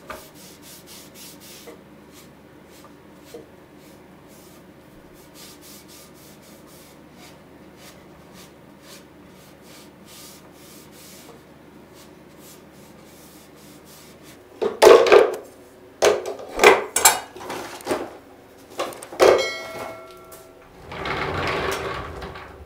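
Soft, quick hand-rubbing strokes of a small pad along a wooden handle. About two-thirds of the way in come several loud knocks and clinks with brief metallic ringing, then a short rumbling noise near the end.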